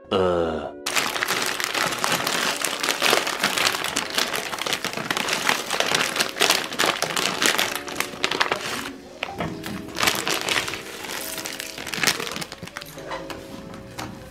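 A short rising sound effect, then food frying in oil in a small saucepan on a gas burner, crackling and sizzling densely for several seconds. After about nine seconds, background music takes over.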